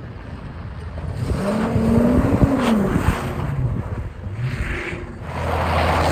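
Car engine running and accelerating: its pitch rises and then drops about two to three seconds in, then settles into a steady low drone.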